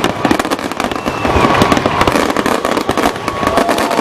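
Fireworks display: a dense, near-continuous barrage of bangs and crackling.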